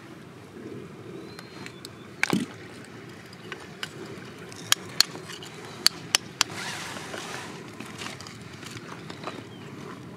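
Sharp metal-on-stone taps of a steel chisel struck into crumbly rock: a handful of separate strikes in the middle of the stretch, the loudest sounds here. A single dull thump comes about two seconds in, over a steady low outdoor noise.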